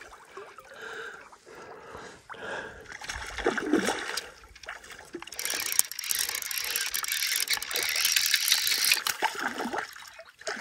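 Water splashing and trickling. It is quieter in the first half, fuller and louder from about halfway through, and falls away shortly before the end.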